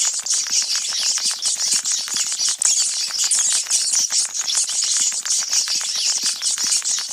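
A swarm of rats squeaking and chittering all at once: a dense, high-pitched chatter full of rapid clicks that keeps up at an even level.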